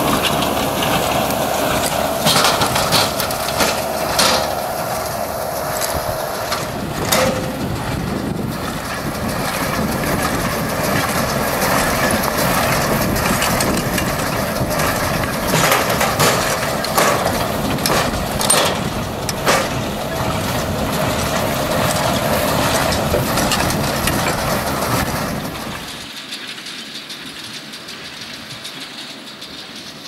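John Deere 6110 tractor pulling an International Harvester 440 small square baler and a McConnel bale packer while baling straw, with the tractor engine and baler machinery running and occasional sharp knocks and clatter from the baler and packer. Near the end the sound drops to a quieter, more distant running.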